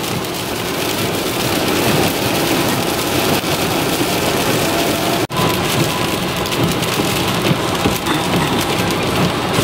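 Steady hiss of rain and tyres on a wet highway, heard from inside a moving car. The sound drops out for an instant about five seconds in.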